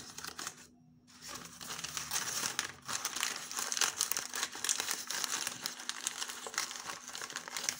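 Lined notebook paper crinkling and rustling as hands fold it around a paratha to wrap it. After a short pause about a second in, the crinkling runs on continuously.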